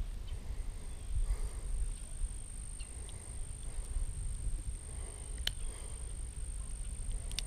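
Wind rumbling on the microphone, with a faint steady high-pitched whine and a few faint clicks as the hook is worked free of a small bass's mouth.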